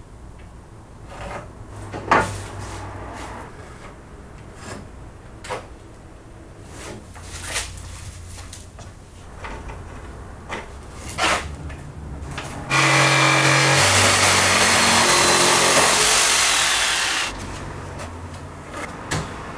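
Light knocks and taps of wooden roof battens and tools, then a handheld power tool runs steadily for about four and a half seconds while the battens are being taken out for the roof-window opening.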